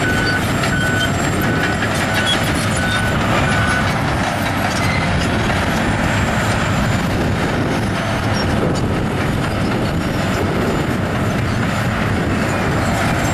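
Heavy diesel earth-moving machinery running steadily under load. A reversing alarm beeps about twice a second for the first few seconds, then stops.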